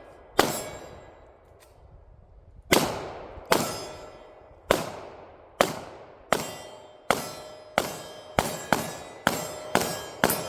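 A string of about thirteen pistol shots, each followed by a metallic ring as steel targets are hit. The shots come roughly a second apart at first and quicken toward the end.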